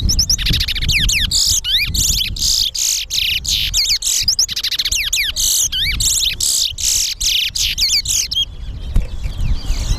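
Caged towa-towa seed finch singing a long, fast run of sweeping whistles and chirps, one competition song, stopping about eight and a half seconds in.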